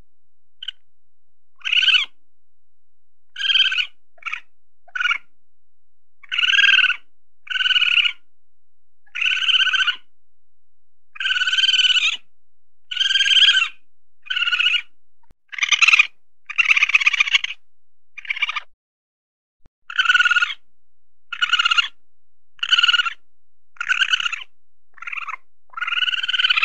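Weasel calling: a long series of short, high-pitched squeaky calls, about one a second, some with a buzzy trill.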